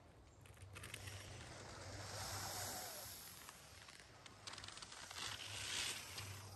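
Faint rustling hiss that swells twice, with a few light clicks and a low steady hum beneath.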